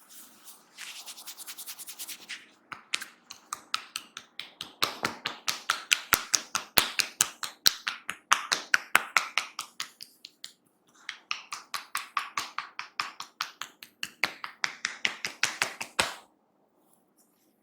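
Percussive massage tapping: hands striking the head and shoulders rapidly and rhythmically, several quick slaps a second, in runs with short pauses, stopping suddenly near the end.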